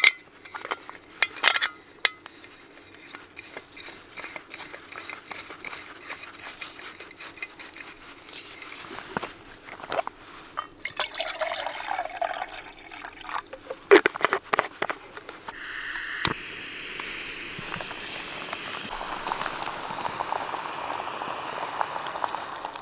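Metal clicks and scraping as a backpacking canister stove is screwed onto its gas canister, then water poured from a bottle into the stove's pot about eleven seconds in, and a few sharp clicks. From about sixteen seconds the gas burner is lit and runs with a steady hiss under the pot.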